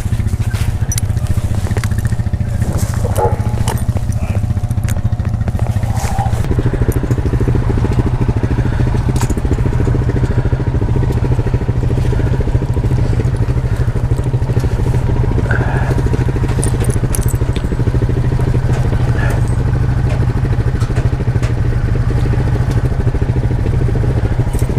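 Vehicle engine running steadily, a loud low drone; its sound fills out a little about six seconds in.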